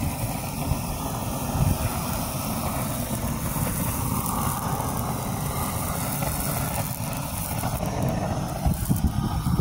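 Propane weed-burner torch burning steadily, a continuous rushing noise, as it singes the hair off a hog's hide.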